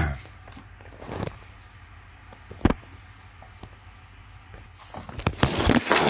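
Light clicks and knocks of things being handled, with one sharper click about two and a half seconds in, then a louder, noisy clatter starting about five seconds in.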